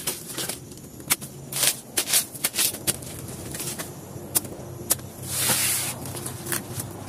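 A machete cutting and prying apart the layered sheaths of a banana stalk: irregular crisp snaps and chops as the fibrous layers split, with a longer tearing rustle about five seconds in.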